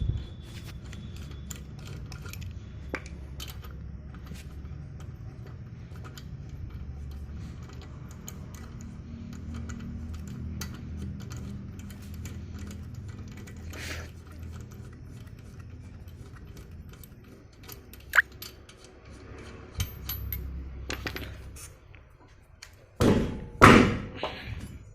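Vehicle running with a steady low rumble and many small clicks and knocks: the noise that mostly comes from the front of the vehicle, of unknown cause. Several louder thumps come near the end.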